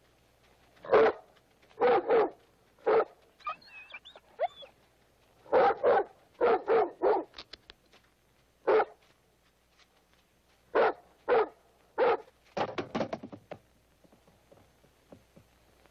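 A wolf dog barking in short bursts, singly and in quick runs of two to four, with a few high gliding whines between the barks about four seconds in.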